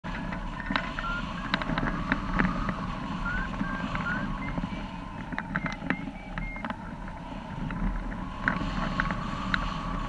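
Strong gusty wind rushing over the microphone and the Wills Wing hang glider's sail, with scattered sharp ticks. During the first seven seconds or so a variometer gives short electronic beeps that step up and down in pitch.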